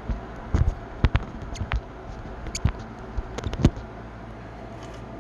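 Small plastic toy bazooka being handled and worked by hand: a run of light clicks and knocks, about a dozen in the first three and a half seconds, over a steady low hum.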